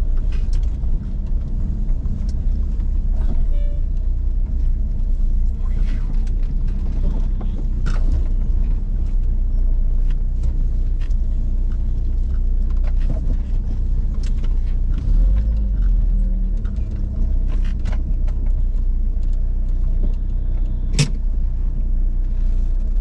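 Car cabin while driving slowly in rain: a steady low engine and road rumble, with scattered ticks of raindrops striking the windshield and roof, and one sharper click near the end.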